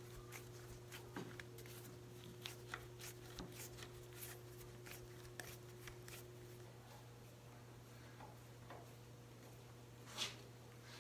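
Faint clicks and scrapes of a hand screwdriver driving a steel screw into pilot holes in walnut, cutting threads for the brass hinge screws, with one louder knock about ten seconds in. A steady low hum runs underneath.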